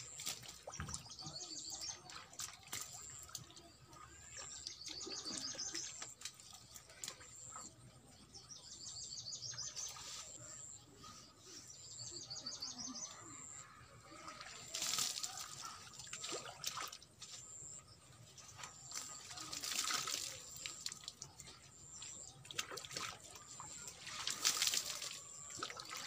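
Water poured from a plastic dipper splashing over a bather and onto the ground, in several separate pours, three louder ones in the second half. Birds chirp a short repeated phrase in the first half.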